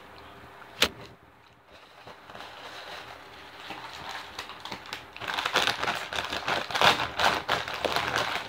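A single sharp click about a second in, then soft rustling, and from about five seconds in a Doritos foil chip bag crinkling loudly as it is picked up and handled close to the microphone.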